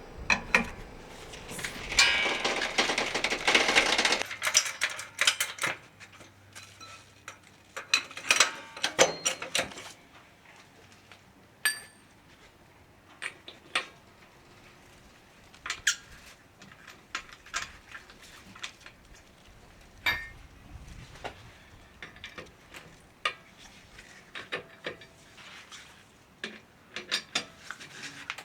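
Metal tools and lug nuts clinking and clanking during a tyre change: a dense run of rattling in the first four seconds, then scattered separate clinks and knocks.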